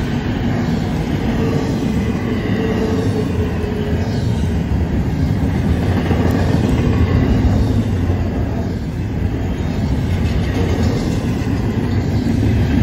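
Double-stack intermodal container cars of a freight train rolling past close by: a steady, loud rumble of steel wheels on the rails.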